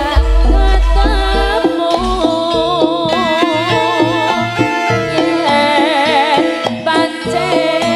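Live jaranan ensemble music from East Java: percussion and pitched metal instruments with a melody line that bends and wavers up and down over them. A deep low note sounds for about the first second and a half.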